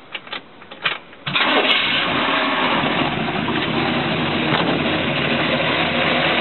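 Chevrolet 350 small-block V8 starting: it catches about a second in and then runs steadily.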